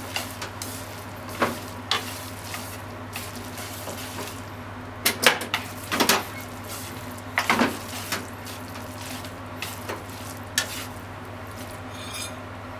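Pork, onion and noodles sizzling in a frying pan as they are tossed and stirred with wooden chopsticks, with irregular knocks and scrapes of the chopsticks against the pan, the loudest cluster near the middle. A steady low hum runs underneath.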